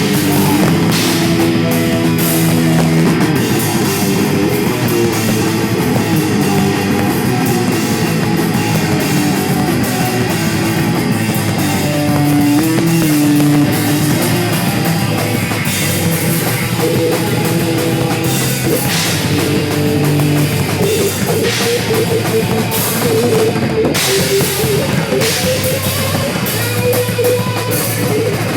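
Live heavy metal band playing loud, with distorted guitars, bass and a pounding drum kit crashing its cymbals.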